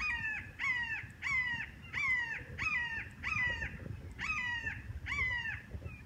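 Blue jay giving a run of eight harsh, descending jeer calls, about one and a half a second, with a short pause a little past the middle: alarm calls of jays mobbing a hawk.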